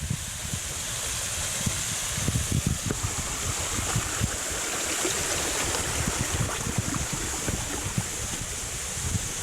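Small waterfall splashing steadily, falling like a shower, with irregular low buffeting of wind on the microphone.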